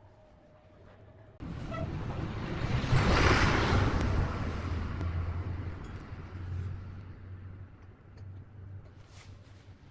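Wood lathe running with a hand-held turning tool cutting into a spinning log blank, throwing off shavings over a steady motor hum. The cutting noise starts suddenly about a second and a half in, is loudest a couple of seconds later, then eases off.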